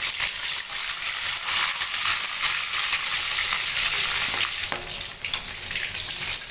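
Boiled chicken pieces deep-frying in hot oil in a wok, a steady sizzle with scattered crackling spatter. A couple of sharper clicks stand out a little after the middle.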